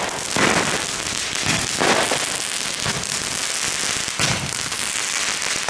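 Nico Supreme Double Shots consumer firework tubes firing in a row: a steady hiss of spark sprays broken by repeated sharp pops and bursts, about one a second.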